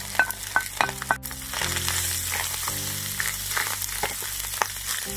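Chopped lamb kokoreç frying on a hot saç pan: a few sharp clicks with a short metallic ring in the first second or so as it goes onto the pan, then steady sizzling.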